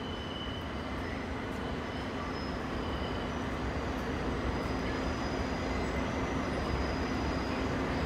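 R46 subway train approaching on an elevated steel structure: a steady rumble that slowly grows louder, with faint high wheel squeals coming and going.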